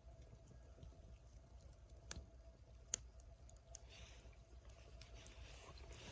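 Faint crackle of a small wood fire in a Sierra stove: a few sharp pops, the loudest about three seconds in, with a soft hiss near the end over a faint steady hum.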